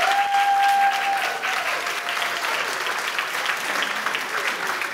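Audience of adults clapping, a steady patter of many hands that eases off slightly toward the end. A single held high tone sounds over the clapping for about the first second.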